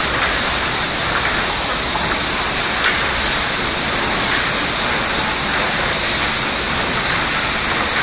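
Sawmill machinery running steadily: a loud, even noise with a constant high hiss and a faint clack about three seconds in.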